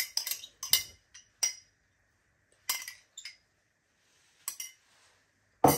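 Metal spoon clinking against a glass Pyrex measuring jug and a metal measuring cup while powdered coconut milk is spooned out: a string of separate sharp clinks, with the loudest, heavier knock near the end.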